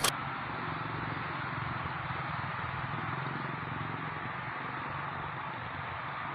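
Steady running noise of a KRL electric commuter train at track level: a low hum under an even rushing hiss, easing off slightly toward the end.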